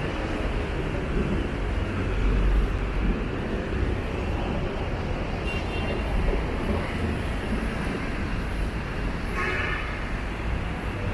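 Steady city traffic on a busy avenue: engines and tyres of passing vehicles with a low rumble. A short horn-like tone sounds near the end.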